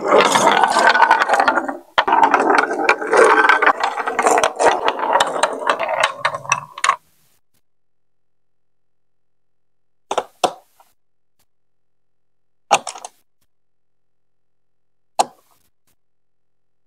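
A plastic marble rolling and rattling down plastic marble-run chutes, with many small clicks as it runs over the joints and curves, for about seven seconds until it stops. After a silence, a few short, separate plastic clicks.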